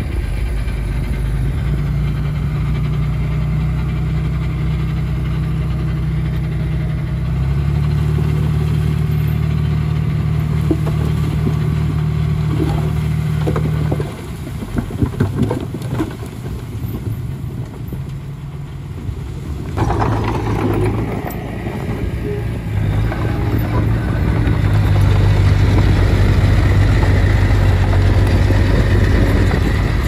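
Diesel engine of a small Komatsu D20P crawler bulldozer working steadily. Its note steps up about a quarter of the way in, then drops about halfway through, with several seconds of knocks and clatter. It picks up again and pulls harder toward the end.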